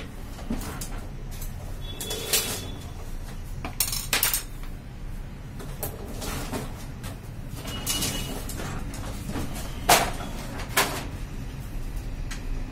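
Plastic covers and doors of a Xerox WorkCentre 7500-series copier being opened and handled: a series of sharp clicks and knocks, the loudest about ten seconds in.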